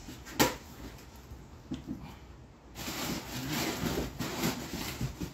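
Plastic-wrapped amplifiers and cardboard packing being handled: a sharp knock about half a second in, a lighter tap a little later, then rustling of plastic and cardboard through the second half.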